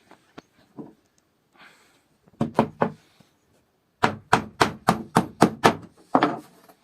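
Hammer blows on wood: a quick group of about three strikes, then a steady run of about seven at roughly four a second, and a final longer, duller knock near the end.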